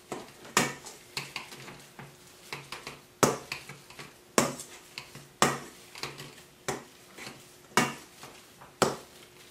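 Boiled potatoes being mashed with a hand potato masher in a stainless steel bowl: the masher clanks against the metal bowl in a run of sharp knocks, the loudest about once a second, with softer knocks between.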